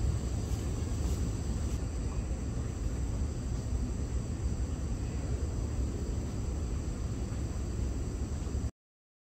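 Outdoor ambience: steady high chirring of insects such as crickets over a low rumble. It cuts off suddenly near the end.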